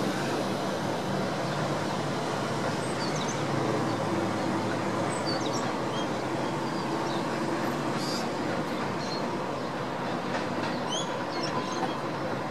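Electric suburban train moving through the station: a steady low rumble and hum of the train, with short high chirps now and then.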